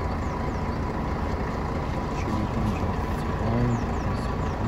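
Diesel engine of a Volvo city bus idling: a steady low rumble with a faint steady whine.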